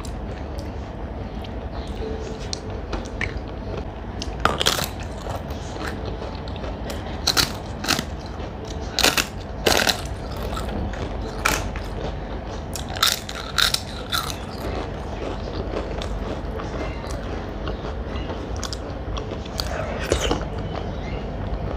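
Eating sounds: a series of sharp, crunchy bites and chewing on crisp food, coming in clusters, over a steady low background hum.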